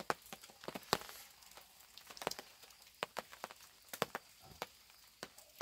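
Irregular sharp ticks and taps, about fifteen scattered over a few seconds, over a faint background hiss.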